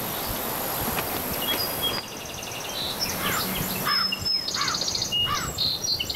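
Outdoor country ambience: a steady hiss with songbirds chirping and trilling, the calls starting about two seconds in.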